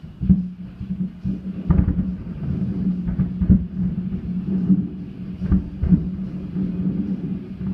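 Fireworks shells bursting in a grand finale: a rapid, irregular string of booms of varying strength, over a steady low hum.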